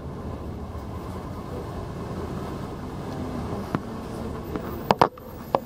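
Steady low engine and road rumble heard from inside a slow-moving bus. Several sharp clicks or knocks come in the second half, the loudest about five seconds in.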